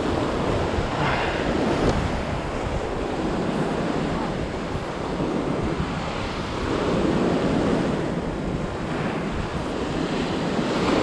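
Heavy surf breaking on the beach, with wind buffeting the microphone. The wash of the waves swells and eases, a little louder about seven seconds in and again near the end.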